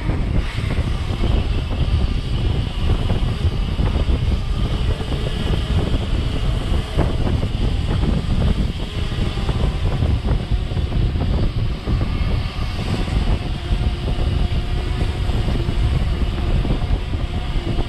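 Wind rushing over the camera microphone and a mountain bike rattling and knocking over rough ground while riding fast downhill.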